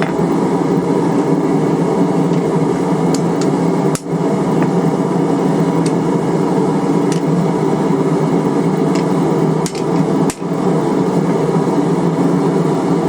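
Forging hot steel: continuous rapid hammering that evens up and centres the drawn-down taper of a slot punch.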